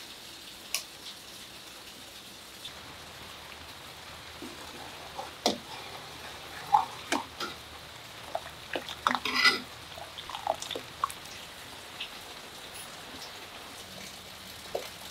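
Steady rain falling, with scattered drips and sharp clicks, most of them bunched in the middle.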